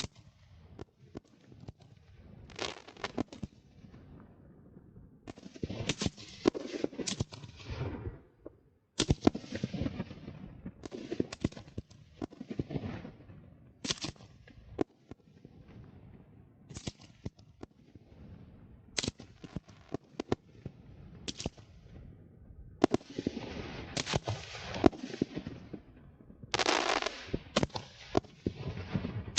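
Fireworks display: sharp bangs of bursting shells follow one another in quick succession, with rapid crackling runs and longer rumbling booms.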